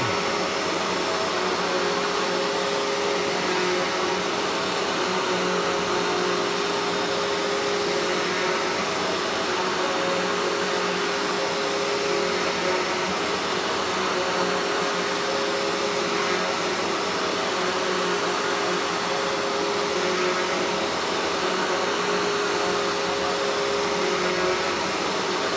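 Hoover Hushtone upright vacuum running steadily on a carpet sample, a continuous motor hum under rushing air. Its suction is strong enough to pull the carpet up off the floor.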